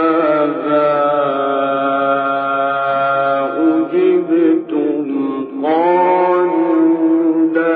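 A male Qur'an reciter chanting in the melodic mujawwad (tajweed) style, holding long ornamented notes. There is a short break about four to five seconds in before the next phrase begins. The sound is muffled and narrow, typical of an old archival recording.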